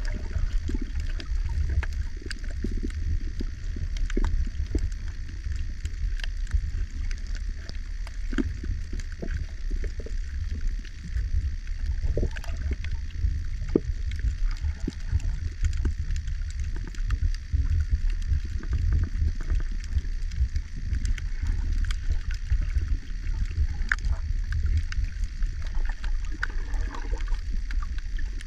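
Underwater sound picked up by a snorkeller's camera: a steady low rumble of water moving around the camera, with many scattered small clicks and crackles.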